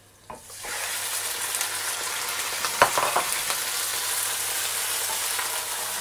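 Raw chicken pieces going into hot oil and fried onions in a stainless steel pot: a loud sizzling starts about half a second in and carries on steadily. A few sharp knocks sound over it, the loudest about halfway.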